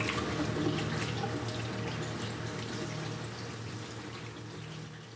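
Water running from a tap into a stainless steel sink as hands are washed under it, over a steady low hum. The sound gradually fades out.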